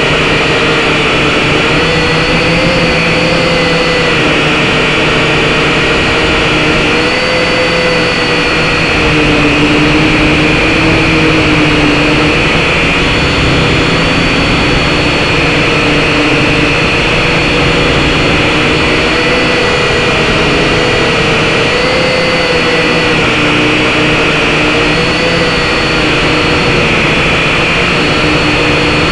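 SYMA X5HC-1 quadcopter's small electric motors and propellers buzzing in flight, heard close up through the drone's own camera microphone: a steady whine over a dense hiss, its pitch wavering slightly up and down as the motors change speed.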